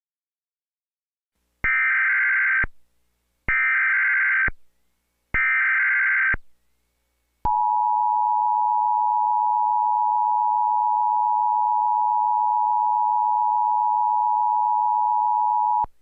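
Emergency Alert System SAME header: three short bursts of warbling data tones, about a second each, then the two-tone EAS attention signal held steadily for about eight seconds and cutting off abruptly. This header and tone open an EAS National Periodic Test alert.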